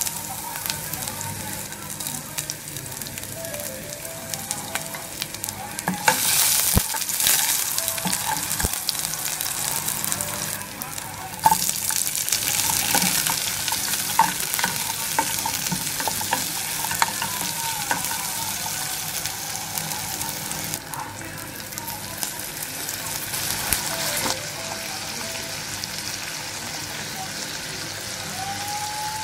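Chopped garlic, onion and green chillies sizzling in hot oil in a steel pot, with a steady hiss that swells louder for stretches. A wooden spatula stirs and knocks against the pot now and then.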